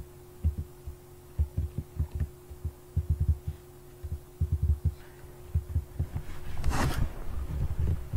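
Irregular muffled low thumps of computer keyboard and mouse use, carried through the desk to the microphone, over a steady low hum that stops about six seconds in. A short hiss comes near the end.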